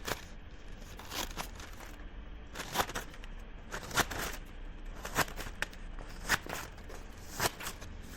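Scissors cutting paper: a crisp snip roughly once a second, about seven cuts, with the paper rustling between them.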